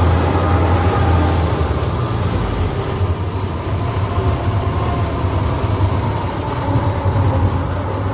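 Diesel engine of a Kubota rice combine harvester running steadily while it harvests, a constant low drone with mechanical clatter over it.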